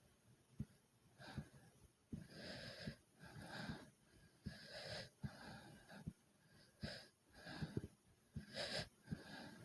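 A person breathing hard and fast after exertion: quick, noisy breaths in and out, one every second or so. Short low thumps come about once a second, the fast heartbeat.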